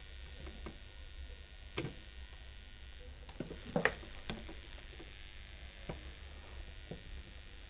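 Scattered clicks and light knocks of hands handling small objects, a few at a time, loudest about four seconds in, over a steady low hum.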